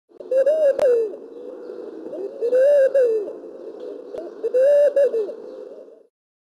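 A bird calling three times, about two seconds apart: each call is a short low note that rises and then falls.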